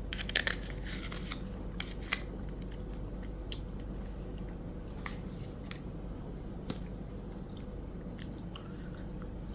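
A person chewing a mouthful of klappertaart, a soft coconut custard cake, with a quick cluster of mouth clicks and smacks just after the start and scattered faint ones after that, over a steady background hum.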